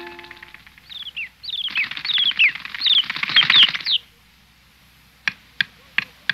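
A bird chirping in quick, falling high chirps over a rapid wing flutter for about three seconds. Then, after a pause, four sharp separate taps.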